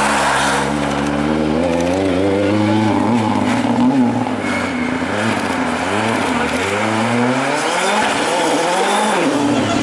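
Rally car engine revving hard as it drives a stage. Its pitch climbs and drops several times as the driver lifts, shifts and gets back on the throttle, with a longer climb near the end.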